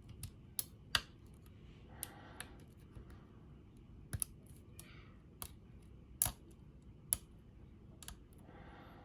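Lock pick clicking against the pins of an Illinois Duo cam lock under tension as the pins are set: sharp, irregular clicks, about a dozen, with uneven gaps between them.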